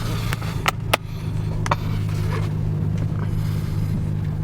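Car engine running steadily. A few sharp clicks come in the first second or so and one more just under two seconds in.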